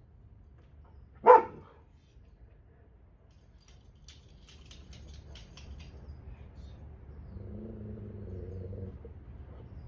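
A dog barks once, sharply, about a second in. A run of light clicks follows, then a low drawn-out sound near the end.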